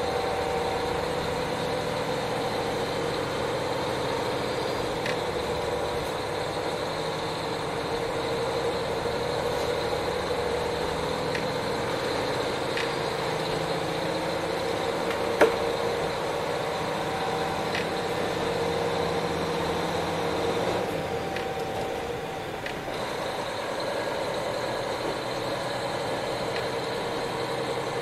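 KiHa 40 diesel railcar under way, heard from inside the car: the diesel engine runs steadily with its rolling noise, and faint clicks come now and then, with one sharper click about fifteen seconds in. The noise eases briefly a little after twenty seconds, then returns.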